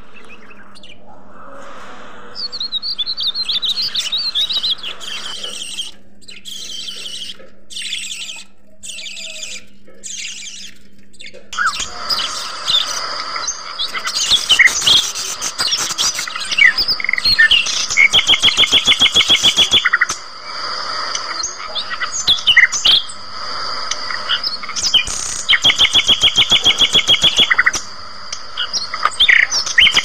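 Caged budgerigars chattering as a flock. Scattered high chirps come first; a little before halfway it becomes a dense mix of chirps and warbles, with loud, fast rattling trills of about two seconds each, repeated several times.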